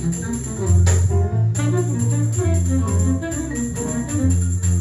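Recorded music with a strong, stepping bass line and a cymbal crash about a second in, played from a record on a McIntosh MTI100 integrated turntable through B&W 804 floor-standing loudspeakers and heard in the room.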